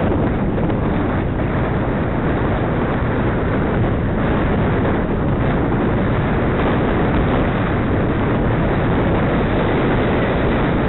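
Steady wind noise rushing over the microphone of a camera on a moving bicycle.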